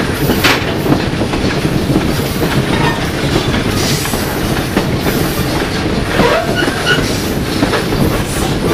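Passenger coach's steel wheels rumbling and clacking loudly over the rails, heard from an open vestibule between cars, with a brief faint wheel squeal on the curve about six seconds in.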